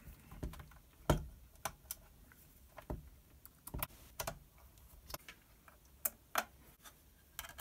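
Irregular light clicks and taps of small parts and a screwdriver against the display unit's sheet-metal housing as it is slotted together and screwed up, roughly one or two clicks a second.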